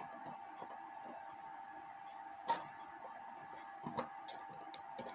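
Small metallic clicks and ticks from an 1880s Albert Flieg cuckoo clock movement as its minute hand is turned by hand to find where the cuckoo lever trips. A sharper, louder click comes about two and a half seconds in and another near four seconds, over a faint steady tone.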